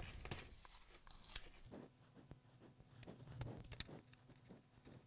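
Faint crinkling and crackling as a pack of LiFePO4 pouch cells is handled and its insulating tape peeled off, with one sharp click about a second and a half in.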